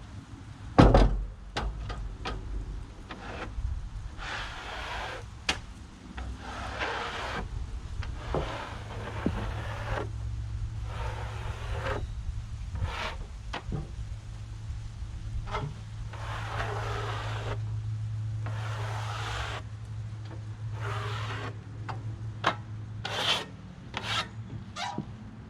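Freshly sawn wood being rubbed or slid in repeated strokes of about a second each, with a sharp knock about a second in and a few lighter clicks. A steady low hum runs underneath from about a third of the way in.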